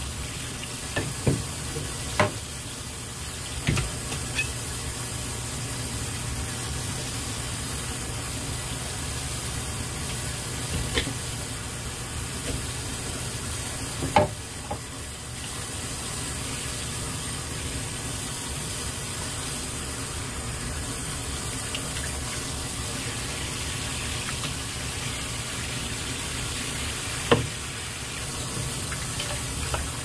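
Tap water running steadily onto a large stone flounder on a cutting board as it is rinsed and cleaned. A few short, sharp knocks come through the water noise, the loudest about 14 seconds in and again near the end.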